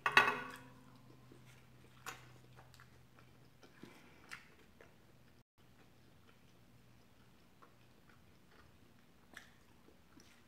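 A person chewing a mouthful of chicken tikka masala and garlic naan: one loud wet mouth sound at the start, then soft scattered chewing clicks and smacks.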